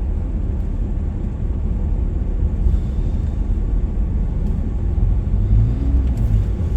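Steady low rumble of a vehicle driving slowly, heard from inside the cab: engine and road noise.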